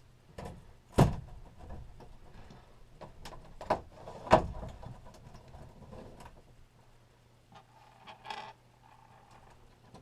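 Scattered knocks and clunks from work on a wooden bed platform and its frame, with two louder thumps, about a second in and about four seconds in, over a faint steady low hum.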